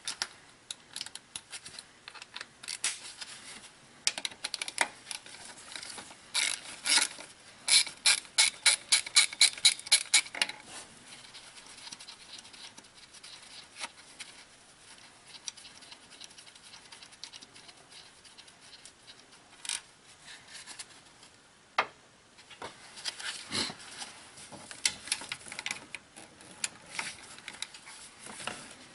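Ratchet wrench clicking as it loosens the distributor's mounting bolts on a Honda D16Y8 engine. The clicks come in a quick even run of about three to four a second from about six to ten seconds in, then stop, and start again in scattered bursts near the end.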